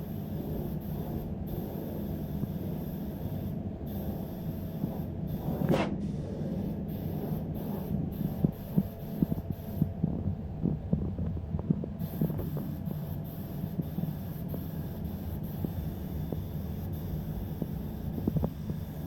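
Steady low machine hum during spray painting, with a brief swish about six seconds in and scattered light clicks and knocks a little later.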